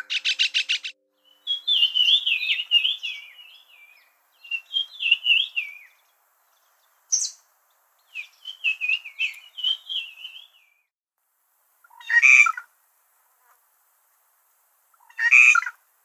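Several birds calling: a quick rattle of clicks, then several warbled phrases of wavering notes, and near the end two short harsh calls.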